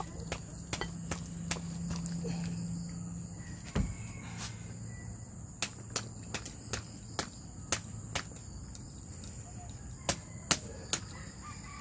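Pig's trotters and broth being tipped and shaken out of a bamboo cooking tube into a ceramic bowl: irregular clicks and knocks of the tube and food pieces against the bowl, with a heavier thud about four seconds in. A steady high-pitched drone runs underneath.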